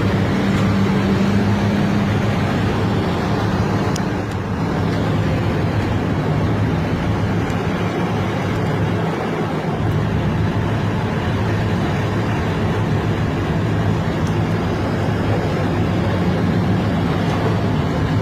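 Heavy machine's diesel engine running steadily, with a low hum whose pitch shifts slightly about four seconds in.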